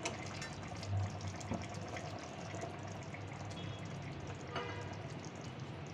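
A steady watery sound in a kitchen, with a light clink about four and a half seconds in.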